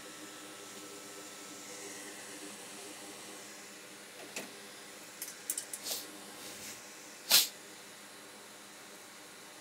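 Steady low fan hiss with a faint hum. A few short clicks and rustles come between about four and six seconds in, then one brief, sharp burst of noise a little after seven seconds.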